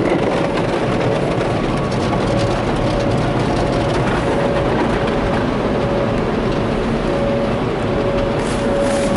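Sonny's car wash tunnel machinery running, heard from inside the car as a loud, steady rushing noise. A thin hum keeps breaking off and coming back.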